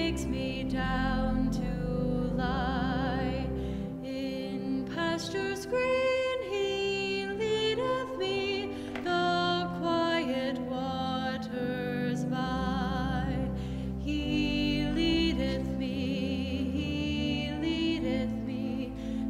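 A solo female voice singing a slow, gentle song with a wavering vibrato on held notes, over an instrumental accompaniment of sustained low notes.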